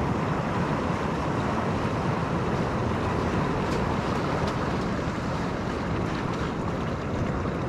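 Steady rush of ocean surf and seawater washing between the rocks, mixed with wind on the microphone. A couple of faint clicks come midway.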